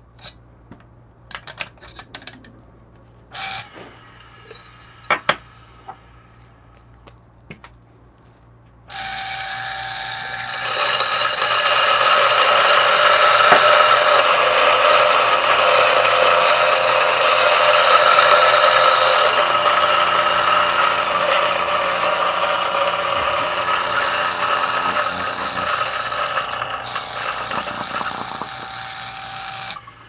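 A Turin DF64 espresso grinder fitted with Gorilla Gear burrs grinds a dose of coffee beans. A few light clicks and knocks come first; about nine seconds in the motor starts and runs steadily for about twenty seconds, then stops just before the end.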